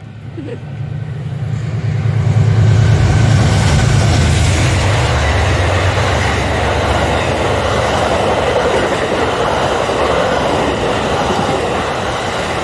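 Amtrak Lake Shore Limited passenger train rolling past on the rails. The locomotive's low hum builds and is loudest about two to four seconds in. After that comes a steady rush and clatter of the passenger cars' wheels as the long train keeps going by.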